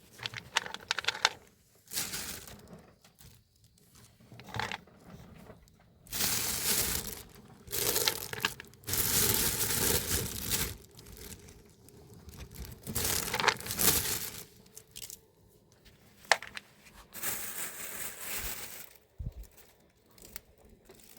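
Irregular crinkling and tearing noises in bursts of a second or two, with quieter gaps between.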